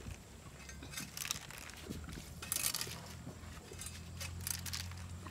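Long metal spatula scraping and knocking against a large wok as noodles and vegetables are tossed, in irregular strokes, over a low steady hum.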